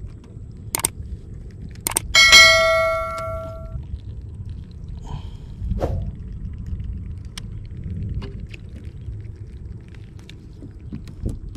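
A single metallic clang about two seconds in that rings on for about a second and a half, with scattered light clicks and knocks over a low steady rumble.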